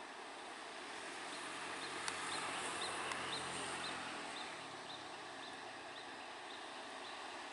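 Distant MAN TGS heavy trucks' diesel engines running faintly under load while pulling a heavy crane trailer uphill, swelling a little about two to four seconds in. A short high chirp repeats about two or three times a second through most of it.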